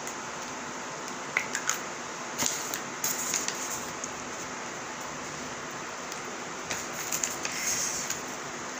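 Light handling sounds from assembling a chicken sandwich: a few soft clicks about a second and a half in, then brief rustles as a sauce bottle and the bun are handled and the sandwich is pressed together near the end, over a steady hiss.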